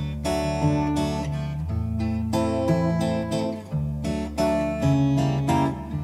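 Background music: acoustic guitar playing strummed chords.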